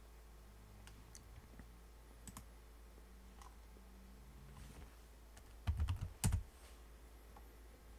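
Computer keyboard keystrokes: a few faint scattered clicks, then a quick run of louder key taps about six seconds in as a short terminal command is typed and entered.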